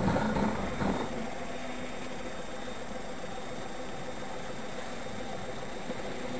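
Steady vehicle engine and road hum with a few faint steady tones, and a brief louder noise in the first second.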